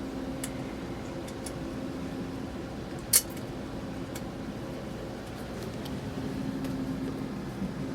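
Small parts and tools being handled during laptop reassembly: faint scattered ticks and one sharp click about three seconds in, over a steady background hum.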